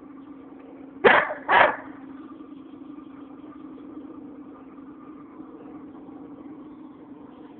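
A German Shepherd dog barks twice, about half a second apart, over a steady low hum.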